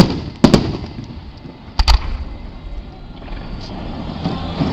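Aerial firework shells bursting with sharp booms: one at the start, then a quick pair about half a second in and another pair near two seconds in, with a low rumble between.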